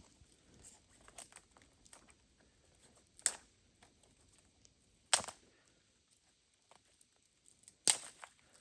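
Irregular sharp clicks and knocks: three louder ones about two to three seconds apart, with fainter ticks between.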